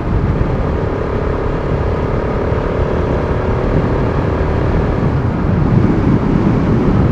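Bajaj Pulsar RS200's single-cylinder engine running steadily while riding, with road and wind rumble; it gets a little louder in the last couple of seconds.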